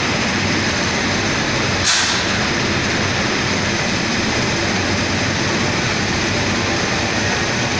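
WAP-5 electric locomotive standing with its machinery running: a loud, steady whir, with one short hiss of air about two seconds in.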